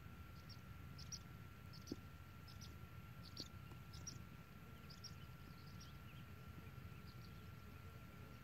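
Faint outdoor ambience: short high chirps come and go irregularly over a low steady rumble and a thin steady tone. A single light click sounds about two seconds in.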